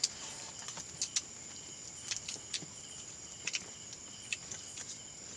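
Crickets chirping steadily, with scattered sharp clicks and taps.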